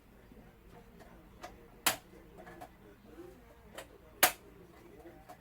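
Sharp taps or knocks from saxophone repair work, coming in pairs: a light tap, then a loud one about half a second later, twice.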